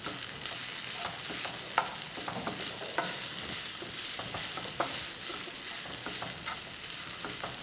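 Wooden spatula stirring and scraping a chicken and onion filling around a hot frying pan, with irregular light scrapes and taps over a steady sizzle of frying oil.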